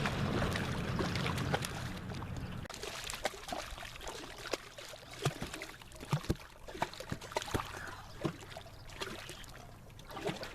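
Water splashing and dripping in short, irregular splashes as a hooked trout is brought to the net, after a steady low hum that stops a couple of seconds in.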